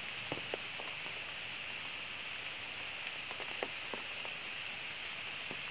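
Steady high hiss of wet tropical forest ambience, with a few scattered soft ticks.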